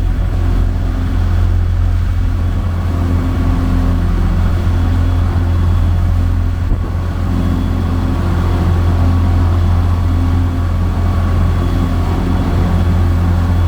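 Passenger boat's diesel engine running steadily under way: a constant low drone with a haze of noise above it.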